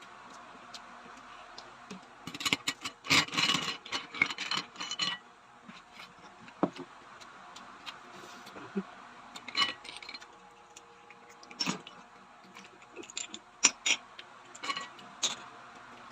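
Eating at a table: irregular clinks, clicks and light scrapes of clam shells and utensils against a plate. A busy flurry of clatter comes about two to five seconds in, then single clicks every second or two.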